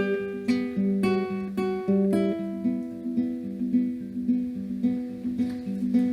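Background music: acoustic guitar plucking a repeating pattern of notes at a steady, even pace.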